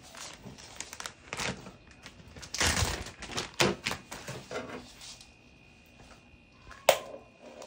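Irregular taps, clicks and plastic rustling from cleaning up on a hardwood floor, with a louder rustle about three seconds in and a single sharp knock near the end.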